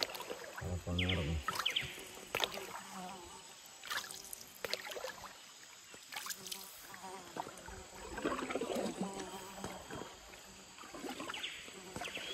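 Wooden paddle dipping and pulling through still river water beside a dugout canoe, with a splash and drip at each stroke. There is a low thump about a second in.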